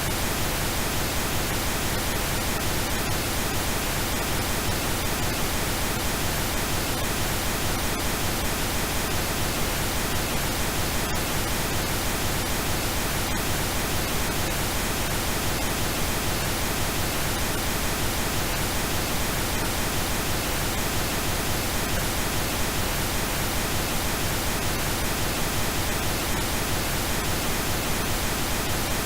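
Steady pink noise: an even, unchanging hiss spread across all pitches, generated electronically.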